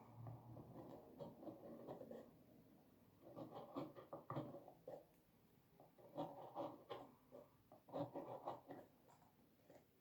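Faint scratching of a red pen drawing on paper, in short spurts of strokes with pauses between.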